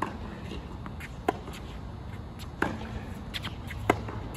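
Tennis rally: rackets striking the ball in turn, four sharp pops about 1.3 s apart, every other one louder from the nearer player, with fainter ball bounces and shoe scuffs between.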